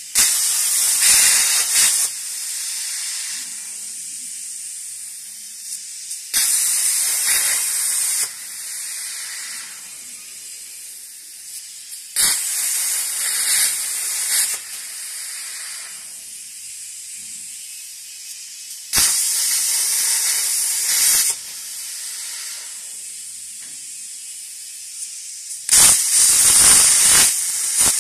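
CNC plasma cutting torch firing five times, each a loud high hiss of about two seconds as the arc cuts a small hole through steel plate, repeating roughly every six seconds. A quieter steady hiss continues between the cuts.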